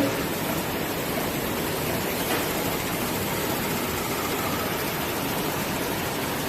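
Tissue-roll band saw cutting machine running with a steady, even rushing noise, with a faint click a little over two seconds in.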